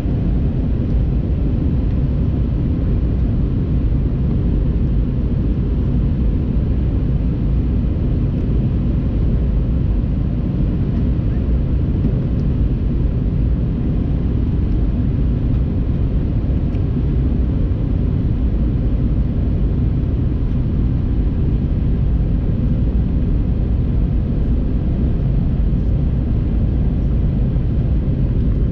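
Steady cabin noise inside an Airbus A321-231 in flight: an even, deep rumble of its IAE V2500 engines and the air rushing past the fuselage, with a few faint steady tones above it.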